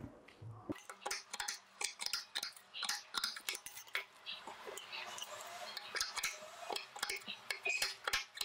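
Scissors snipping through lace net fabric, trimming off its excess edge: a quick run of light, irregular snips, several a second, starting just under a second in.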